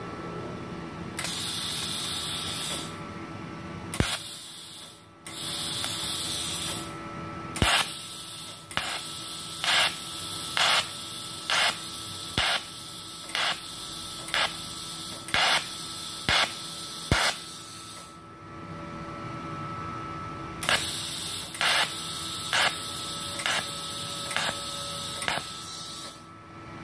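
TIG welding arc on stainless steel from a Multipro TIG 200A-SA inverter welder at about 88 A, hissing. Two early stretches of steady hiss are followed by runs of short surges about once every 0.8 s, with a pause between the runs, over a faint steady hum.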